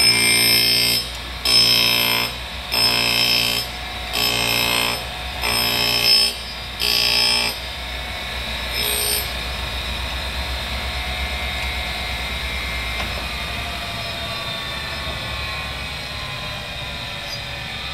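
Chevalier FSG-618 surface grinder's 1 HP spindle taking a heavy cut on a metal workpiece: the wheel grinds in six passes a little over a second apart as the table traverses back and forth, the motor not bogging down. After the passes stop, a quieter hum goes on with a slowly falling whine.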